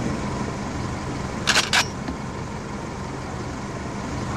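Steady low hum of a parked police car's engine idling, with two brief sharp sounds about a second and a half in.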